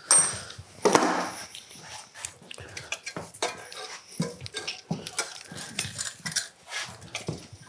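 A bolt drops into a small metal parts tray with a sharp, ringing clink, and a louder clatter of metal follows about a second in. After that comes a run of light metallic knocks and clicks as parts are worked off the front of a V8 engine block during teardown.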